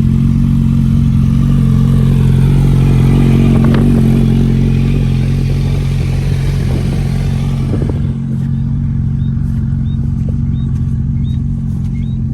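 Motorcycle engine running at a steady idle, close by, with a hiss over it that drops away about eight seconds in.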